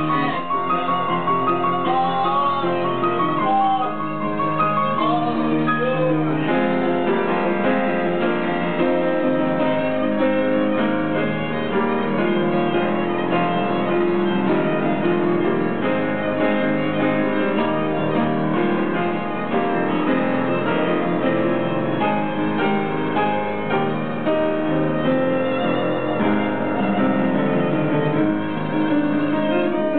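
Live piano and a bowed string instrument playing an instrumental passage of a song, with no singing.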